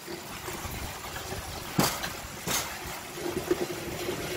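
Rail bike rolling along the rails, a steady rumble of steel wheels on track with two sharp clacks about two seconds in. A steady low hum with small knocks comes in over the last second or so.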